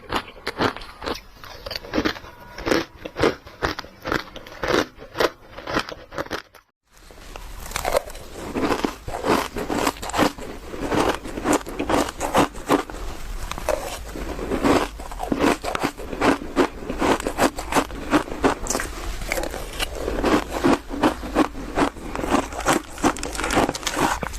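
Crushed ice being bitten and chewed close to the microphone: rapid crunches, about two to three a second. They stop for a moment about seven seconds in, then resume over a low steady hum.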